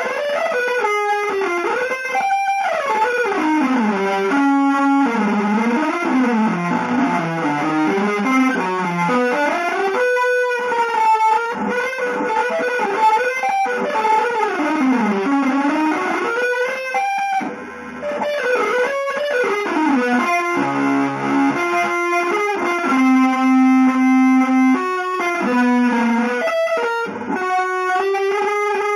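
Electric guitar playing fast, winding single-note lines through an effects unit, in an atonal free-jazz style, with a few brief chord stabs and a long held note in the second half.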